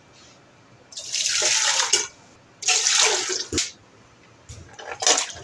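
Water poured into an empty metal pressure cooker in two pours, each a little over a second long, splashing against the pot's bottom. Near the end comes a shorter splash as raw beef pieces are tipped into the water.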